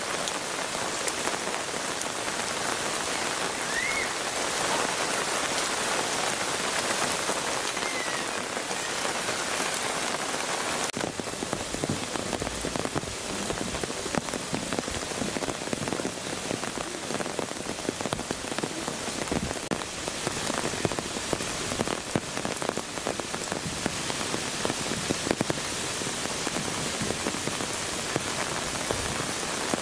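Steady rain falling and pattering on surfaces. About a third of the way in the sound changes, and the separate drops become more distinct.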